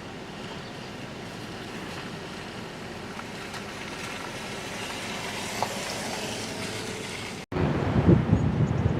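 Strong wind: a steady rushing noise, then after an abrupt cut about seven and a half seconds in, louder gusts buffeting the microphone.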